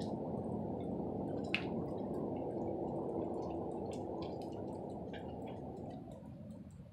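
A steady, low rumbling roar from the sky that holds for several seconds, then fades away over the last couple of seconds.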